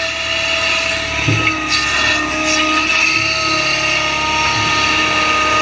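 Excavator's diesel engine running under load with a steady hydraulic whine as the arm swings and the bucket digs into the dirt, with a few small knocks.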